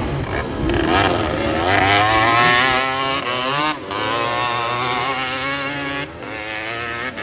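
Dirt bike engine revving hard, its pitch climbing over the first two seconds and then holding high with wavering revs. It cuts briefly at about three and a half seconds and eases off near six seconds.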